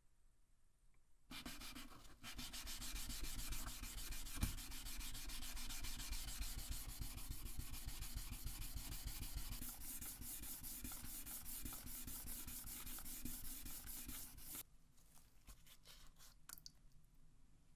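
A steel knife blade being sanded with a cylindrical sanding tool: a steady abrasive rubbing that starts about a second in and cuts off sharply near the end, followed by faint handling clicks.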